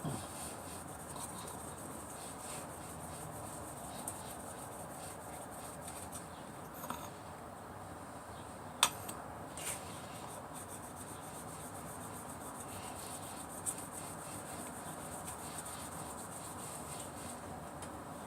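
Hair clipper blade being rubbed over an abrasive to sharpen it: a faint, even rubbing with a few light clicks, the sharpest about nine seconds in.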